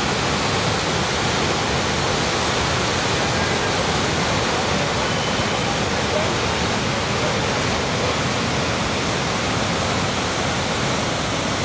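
Flooded river in spate: a steady, loud rush of muddy water churning through standing waves as the torrent carries sediment downstream.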